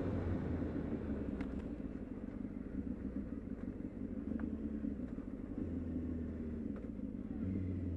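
Honda Hornet 600's inline-four engine through its aftermarket Micron exhaust, running at a steady road-going pace with a low drone. The low note swells briefly a couple of times in the second half.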